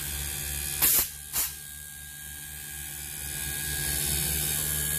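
Air-conditioner rotary compressor running unloaded, driven by an inverter board, a steady electric hum, with its discharge tube plugged by a finger to load it. About a second in, air spits out of the tube twice in short hisses, and over the last few seconds the hum grows louder as the compressor works against the pressure.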